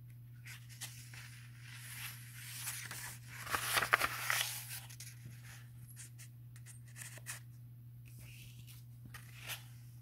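A paperback book's page being turned: paper rustling and swishing, loudest about four seconds in. Later come a few light taps and rustles as the pages are handled.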